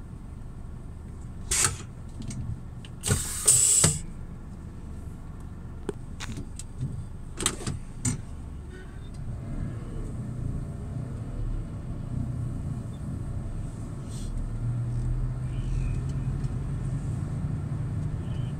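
Scania truck engine idling, heard inside the cab, with scattered clicks and knocks and a short loud hiss about three seconds in. From about halfway the engine note rises and holds steady as the truck pulls away.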